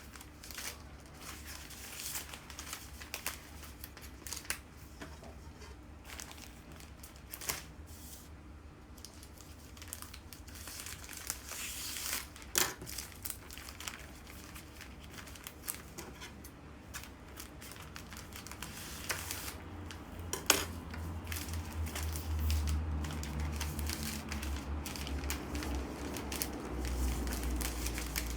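Bouquet wrapping paper crinkling and rustling as it is handled and folded, with scattered sharp clicks and a low rumble that builds over the last third.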